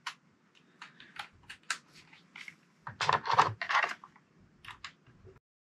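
Irregular light clicks and taps of small plastic RC parts and screws being handled, with a short run of heavier knocks about three seconds in. The sound cuts off abruptly a little after five seconds.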